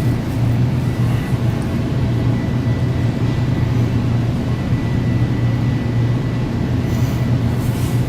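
Steady low rumble of a Metra commuter train car running, heard from inside the car, with a faint steady high whine over it.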